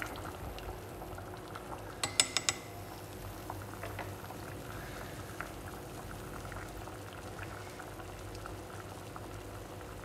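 A stainless steel pot of water at a rolling boil with sliced green squash in it, bubbling steadily. About two seconds in, a quick run of four sharp clicks as the chopsticks knock against the pot.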